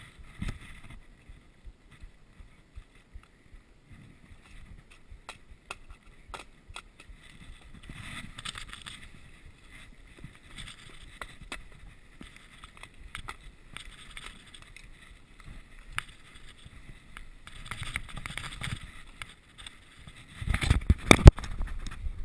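Mountain bike ridden along a snowy forest trail: its tyres roll over snow, with scattered clicks and rattles from the bike. A loud, low rumbling with knocks comes in near the end.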